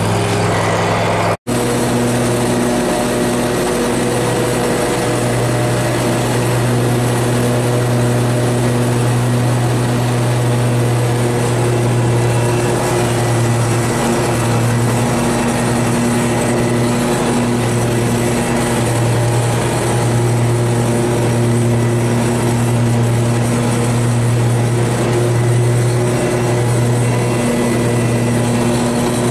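Grasshopper zero-turn riding mower running steadily while mowing, its engine holding a constant pitch. There is a split-second dropout about a second and a half in.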